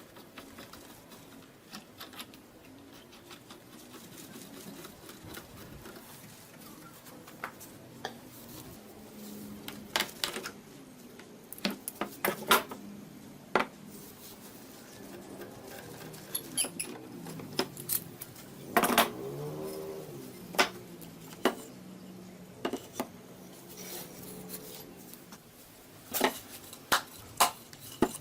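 Irregular sharp knocks and metallic clinks of hand tools and workpieces being handled, with a brief squeaky scrape about two-thirds of the way through.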